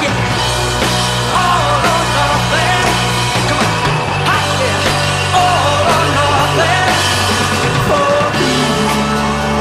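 Rock music with a sung vocal over steady, sustained bass notes.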